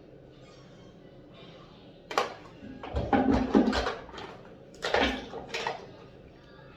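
Dishes clattering and knocking: a sharp knock about two seconds in, then two bursts of clatter.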